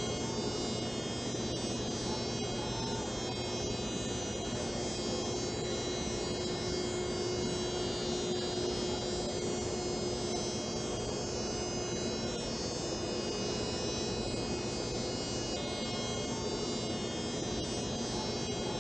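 Varian TrueBeam linear accelerator running during radiation treatment as its gantry rotates around the couch: a steady electrical hum and buzz with a constant high whine.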